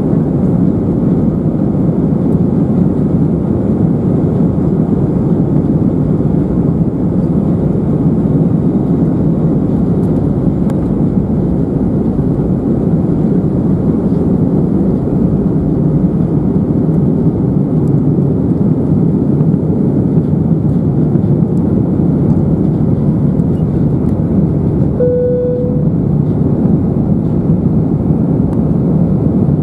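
Steady cabin noise of an Airbus A319-111 jet airliner, its CFM56 engines and rushing airflow heard from inside the passenger cabin. A short single tone, like a cabin chime, sounds once near the end.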